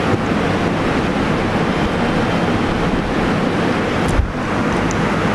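Steady, loud rushing noise, with a short dip a little after four seconds in.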